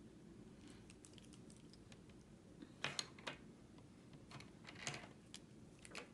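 A few light, sharp clicks and taps scattered over the last few seconds against near silence: drawing pencils being handled and swapped for a harder lead.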